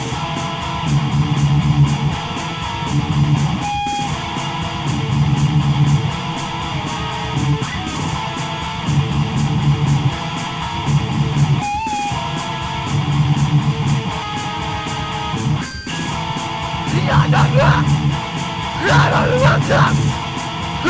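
Instrumental guitar music over a low bass figure that repeats about every two seconds; a wavering higher line joins in near the end.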